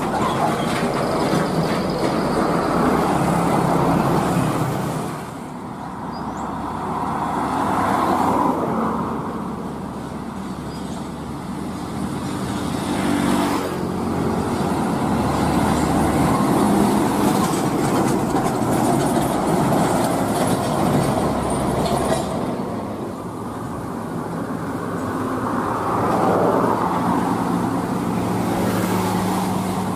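Heavy diesel container trucks passing close by one after another, engines running and tyres rolling on the road. Each grows louder and fades as it goes by.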